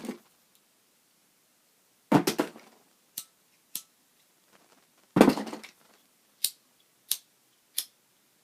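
Lighters being handled and tried one by one: two clattering knocks as they knock against others in the box, about two and five seconds in, with sharp single clicks in between and after.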